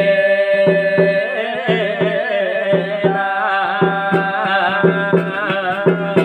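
Garhwali jagar music: drums beating steadily, about three strokes a second, under a held, wavering melody line.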